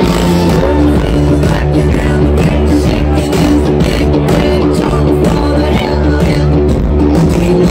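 Live rock band playing through a large outdoor PA, with electric guitars, keyboards and drums in a steady groove, heard from within the crowd.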